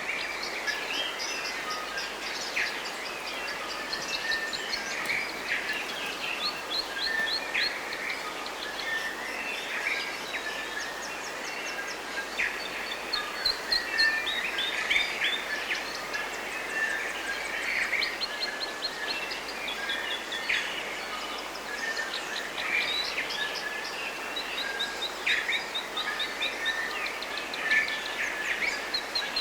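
A chorus of forest birds chirping and singing, with rapid repeated-note trills and short calls overlapping throughout, over a steady background hiss.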